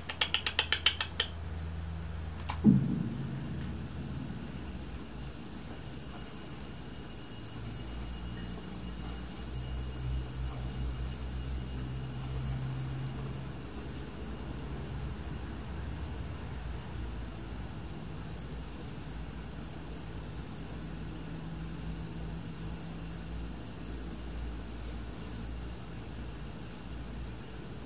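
Quiet horror-film teaser soundtrack: a low, steady drone with a faint high-pitched whine over it, opened by a quick run of clicks and a single low boom about two and a half seconds in.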